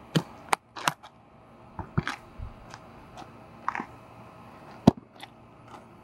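Basketball bouncing on an asphalt court as it is dribbled: three quick bounces about a third of a second apart in the first second, then scattered single bounces, the loudest nearly five seconds in.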